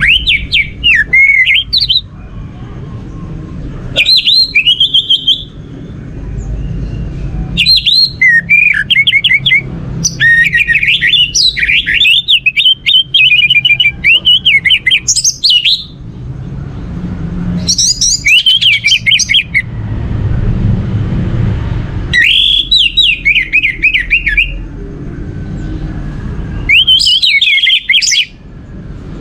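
Orange-headed thrush (anis merah) singing loud phrases of quick, varied notes. The phrases come about seven times, each a second and a half to several seconds long, with short pauses between, over a low background rumble.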